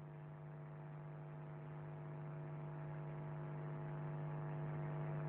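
Faint, steady electrical hum with a row of evenly spaced overtones, slowly growing louder, in a band-limited radio broadcast recording.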